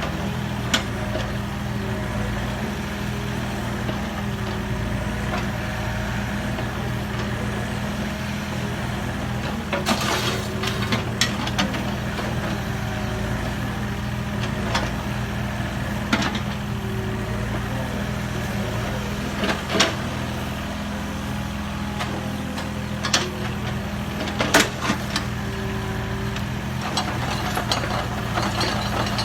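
Mini excavator's diesel engine running steadily, with occasional sharp knocks or clanks over it.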